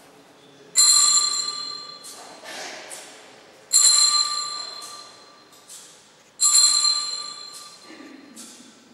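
Altar bells rung three times, about three seconds apart, each a bright ringing strike followed by a couple of fainter rings as it dies away: the bells that mark the elevation of the host at Mass.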